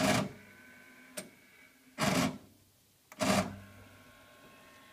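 Transport mechanism of a 1991 Akai GX-75 cassette deck clunking three times as its buttons are pressed, starting with fast-forward, with a lighter click between, while the motor whirrs with a steady whine of several tones, clearest after the last clunk. The owner suspects this weird motor sound means one of the motors is failing.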